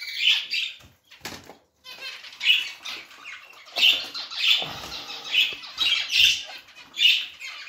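Caged zebra finches giving short, sharp calls about once a second, with a brief break about a second and a half in.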